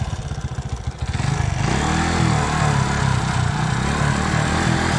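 Small step-through motorcycle's engine running at a low idle, then revved from about a second in, its pitch rising and falling with the throttle.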